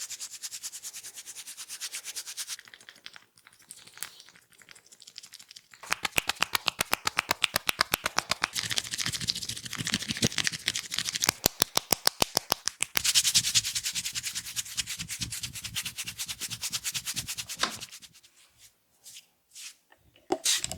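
Fingers rubbing and scratching through hair and over the scalp and ears in a head massage. About six seconds in comes a very fast, even run of taps lasting several seconds, then dense scratching again, with a few single clicks near the end.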